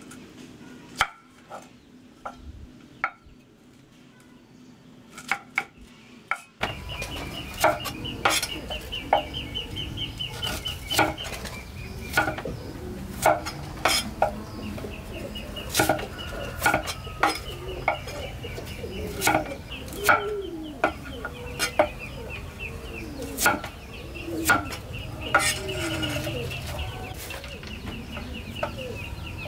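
A few light clinks of kitchenware over quiet. About six seconds in, the sound changes abruptly to chickens clucking over a steady background noise, with frequent sharp clicks and knocks and a repeated high pulsing call.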